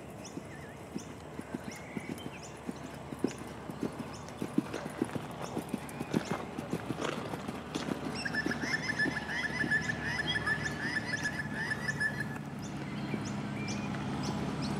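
Horse trotting on a sand arena, its hoofbeats coming as a steady run of muffled thuds. A high, fast chirping trill is heard for about four seconds in the middle, and a low hum grows near the end.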